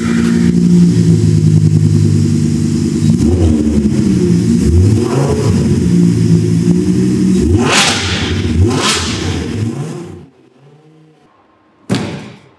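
Lamborghini Huracan's V10 running through a Fi Exhaust catless-header valvetronic system and being revved, rising and falling in pitch, with two short, harsher revs about a second apart near the end. It cuts off suddenly and is followed by a single sharp knock.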